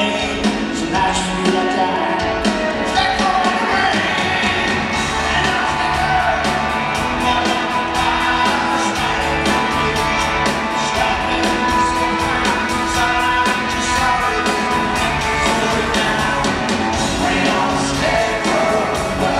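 Live rock band playing in a large hall: a drum kit keeps a steady beat under electric and acoustic guitars.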